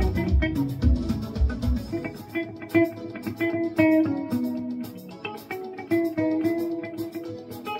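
Hollow-body electric guitar picking a single-note melody line. A low bass backing drops out about two seconds in, leaving the guitar playing on its own.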